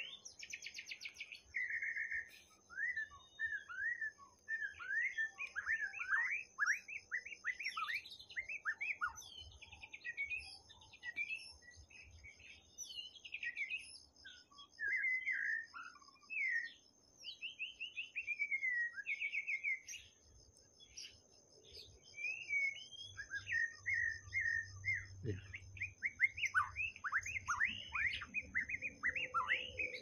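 White-rumped shama singing: a long run of varied whistled phrases, short rising and falling notes and rapid trills, with a brief pause about two-thirds of the way through.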